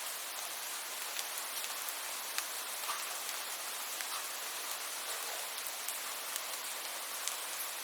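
Steady rain falling, a constant hiss with many small, sharp drop ticks scattered through it.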